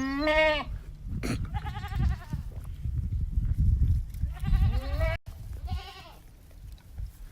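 Goats bleating about four times, each a wavering call of half a second to a second, the last one fainter, over a low rumble.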